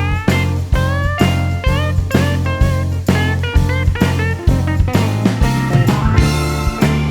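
Background music: a guitar-led instrumental with a steady drum beat and bending, sliding guitar notes.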